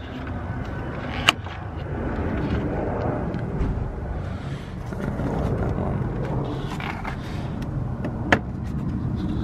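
Plastic bumper clips on a Ford Focus ST front bumper being pulled loose by hand: two sharp clicks, about a second in and near the end, over a steady low rumble.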